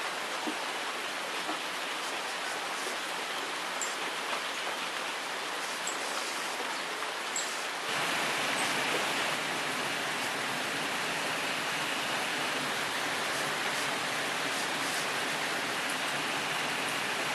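Rainwater running down over rocks, a steady rushing of water with a few faint drips; about eight seconds in it becomes louder and fuller.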